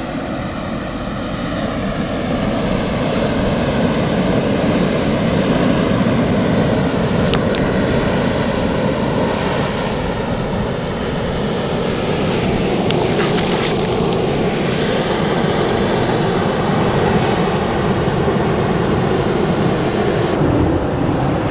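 Ocean surf washing onto the beach, a steady swelling rush, with wind on the microphone.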